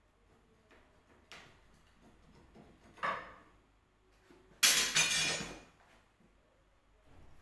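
A glass window being worked open: a sharp click, then two noisy scrapes of the frame moving, the second louder and about a second long.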